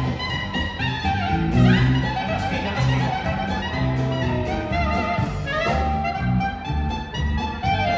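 Live dance band playing an up-tempo tune led by two accordions, with a wind instrument, electric guitars, bass and drums. A quick upward run sounds about two seconds in.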